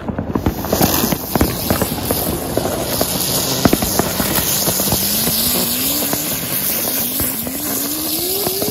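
Firecrackers going off in a rapid, continuous crackle of many small bangs, with a faint rising tone under it in the second half.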